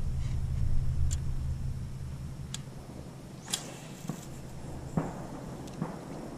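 A few sharp clicks and softer knocks from an angler handling a spinning rod and reel in a small aluminum boat, over a low rumble that fades after the first couple of seconds.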